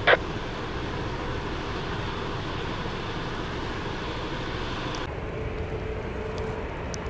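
Steady low rumble of jet aircraft on the airfield, under the hiss of the air-traffic-control radio. The radio gives a click just at the start, and its hiss cuts off about five seconds in.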